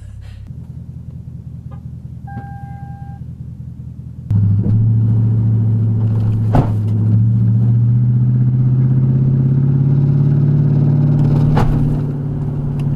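Lexus LS400's 1UZ V8 engine and exhaust, which the owner says is loud, running low and steady, then accelerating hard about four seconds in with its note climbing slowly and easing off near the end. A short electronic beep sounds about two seconds in, and two sharp knocks come during the acceleration.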